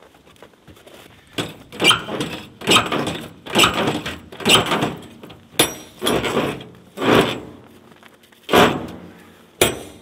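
Footsteps crunching in dry, very cold snow: a steady walking rhythm of about ten steps, a little under a second apart.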